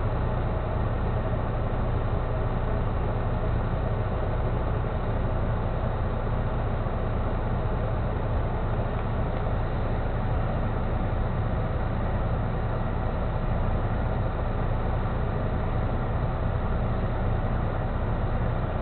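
Heavy truck's diesel engine idling steadily, heard from inside the cab as a constant low hum.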